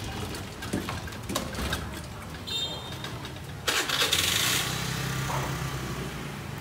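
Motorbike engine running close by, a steady low hum that grows louder and hissier about halfway through, with a couple of light knocks in the first second and a half.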